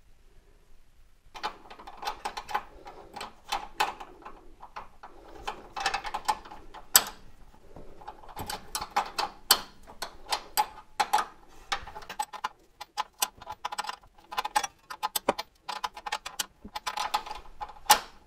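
7/16 wrench working a steel brake line's fitting into a brake hose: a run of irregular clicks and ticks, starting about a second and a half in.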